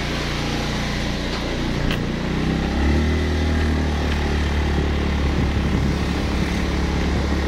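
Motorcycle engine running steadily, getting louder about three seconds in as the bike moves off and rides along.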